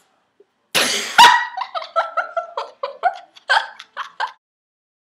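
A short noisy burst, then high-pitched laughter: a quick run of short 'ha' pulses lasting about three seconds before it stops.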